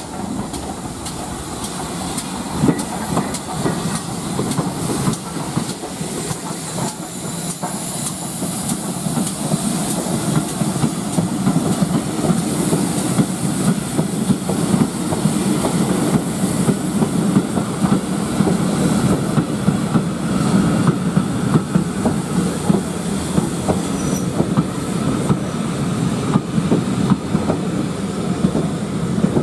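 Steam-hauled train of vintage carriages rolling past, wheels clattering over the rail joints with some steam hiss; it grows louder over the first ten seconds or so and then holds steady as the coaches go by.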